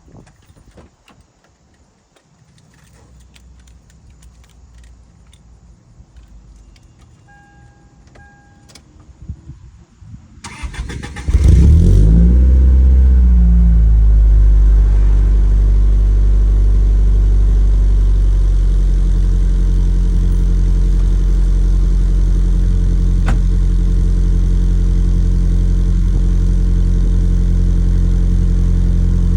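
Toyota 3S-GE inline-four cold-starting through an HKS Carbon Ti exhaust. After a few quiet clicks and two short beeps, the starter cranks briefly about ten seconds in, the engine catches with a flare of revs, then settles into a loud, steady high cold idle that eases down a little.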